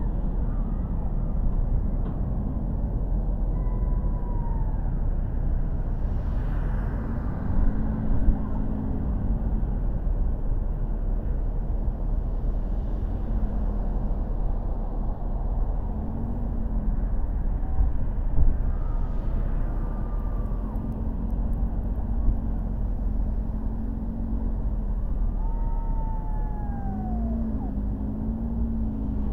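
Steady road and engine noise of a car driving through city streets. A few short wavering whines rise and fall over it, one falling whine near the end.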